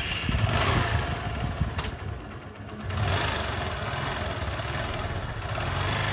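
Honda Shine motorcycle's single-cylinder engine running and being revved: loud for about two seconds, easing off briefly, then picking up again and holding steady.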